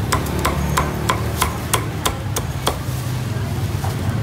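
Cleaver chopping through crisp-skinned roast pork onto a round wooden chopping board: sharp, even knocks about three a second, stopping about two-thirds of the way in.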